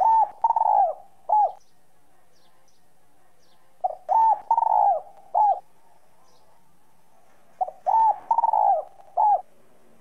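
Spotted dove cooing its song three times, about four seconds apart, in a clear 'whistle' voice (giọng còi). Each phrase is a short lead note, a longer middle coo and a short closing note.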